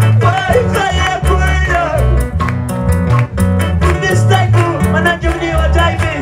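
Live band playing a lively praise song: electronic keyboards carry a bending melody over bass guitar notes and a steady, quick beat.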